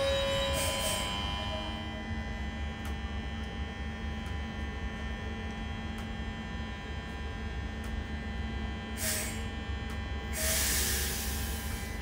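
Queensland Rail electric multiple unit standing at the platform, its electrical equipment giving a steady hum over a low rumble. A high wheel squeal dies away in the first two seconds, and there are two bursts of hiss near the end.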